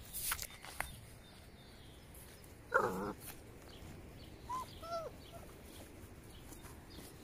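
Rhodesian Ridgeback puppies playing: one short yelp about three seconds in, then two brief high squeaks a little after four and a half seconds, with a few light knocks near the start.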